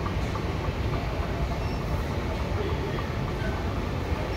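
Steady low rumble of airport terminal background noise, with no distinct events standing out.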